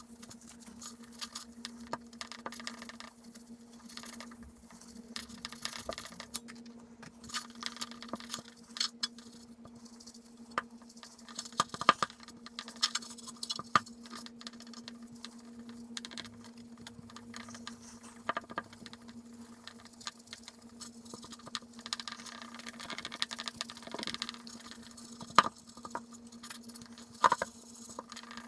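A microfiber towel rubbing silver polishing compound across a silver plate, a continuous scuffing with irregular small clicks and ticks as the plate shifts under the hand.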